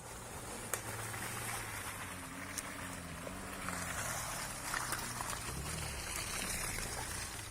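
Off-road vehicle engine running at low revs, its pitch wavering slightly, under a steady hiss of outdoor noise with a few sharp clicks or knocks.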